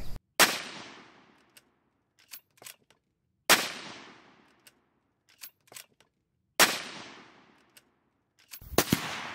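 Three rifle shots from a CZ 527 Carbine bolt-action rifle in .223 Remington, about three seconds apart, each ringing out with an echo that fades over about a second. Faint clicks between the shots as the bolt is worked.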